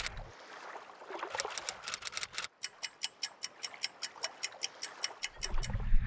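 Rapid, even clock ticking, about five ticks a second, laid in as a sound effect for time passing. Wind rumble on the microphone fades out at the start and comes back near the end.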